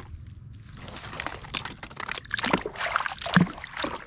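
A hand sloshing and splashing in a plastic tub of muddy water, in irregular splashes that grow stronger after the first second.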